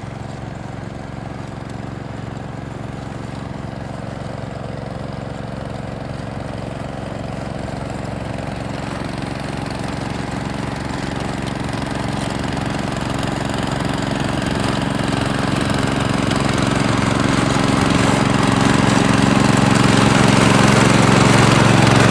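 Gravely 430 walk-behind tractor's engine running steadily as it blows snow, growing steadily louder.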